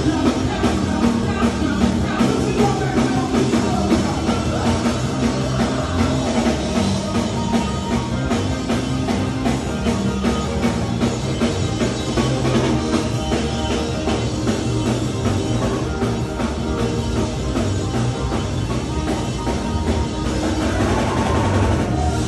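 Live band playing rock music, with a drum kit keeping a steady beat and a singer.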